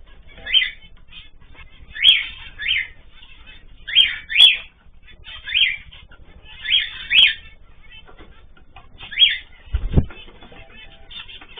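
Pet cage birds calling: short chirps repeated every second or two, often in pairs, with a single low thump about ten seconds in.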